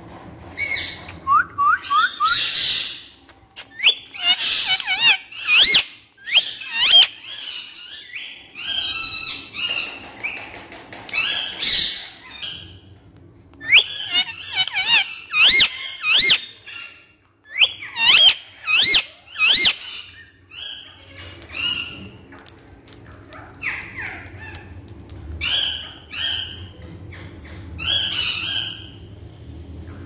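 Indian ringneck parakeet calling and chattering in bursts of short, sharp rising whistles and squawks. The calls become shorter and quieter in the last third.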